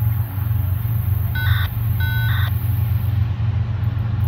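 Steady low engine rumble, with two short electronic beeps about a second and a half and two seconds in.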